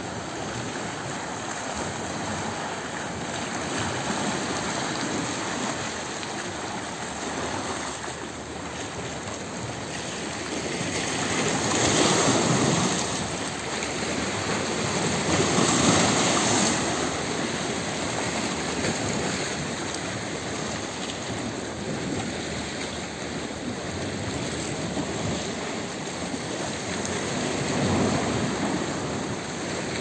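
Small sea waves washing against the rocks at the shoreline: a steady wash of water that swells into louder surges twice near the middle and once near the end.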